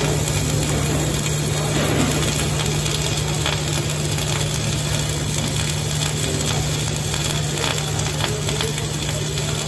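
Wire-feed welding arc burning continuously: a steady crackling hiss as a bead is run on a metal tube, with sparks spitting off the weld.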